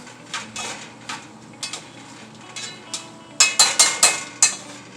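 Metal kitchenware clinking against pots and dishes: a few light knocks, then a quick run of five or six sharp, ringing clinks about three and a half seconds in.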